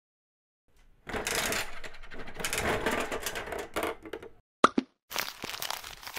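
Capsule-toy vending machine being worked by hand: a run of crackly clicking as its crank is turned, one sharp knock about four and a half seconds in, then more rustling handling noise.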